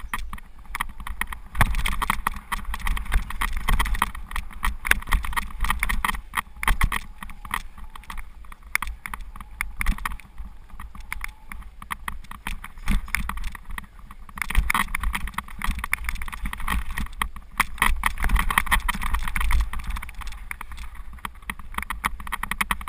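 Mountain bike descending a rough dirt trail, heard from a camera mounted on the bike or rider: a constant, uneven clatter of knocks and rattles as the bike runs over bumps and roots, over tyre noise on the dirt.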